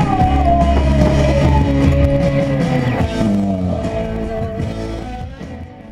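Rock music with guitar: one long note slides down in pitch over sustained chords, and the music fades out near the end.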